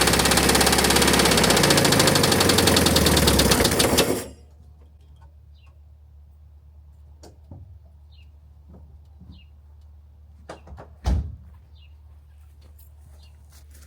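A 1971 VW bus's air-cooled 1600 single-port flat-four engine running loud and rough, which the owner suspects is caused by a bent or over-tight cooling fan. It is shut off about four seconds in. Afterwards come a few faint clicks and one thump near eleven seconds.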